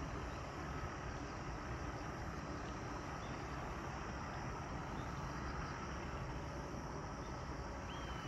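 Steady outdoor background noise: a low rumble under an even hiss, with no distinct events. Near the end a thin, high tone rises and then holds.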